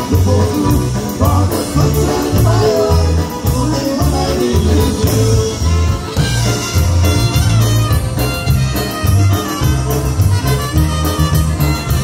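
Live polka band playing: trumpets and accordion carry the tune over an electric bass alternating notes on the beat and a drum kit.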